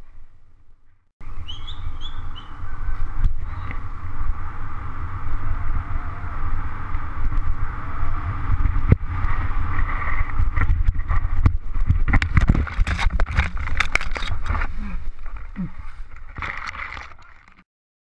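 Mountain bike ridden down a rough dirt trail: a steady rumble of wind and tyres on the helmet-mounted camera's microphone, with the bike rattling and clattering over roots and rocks, the clatter growing heavier in the second half. The sound cuts off suddenly near the end.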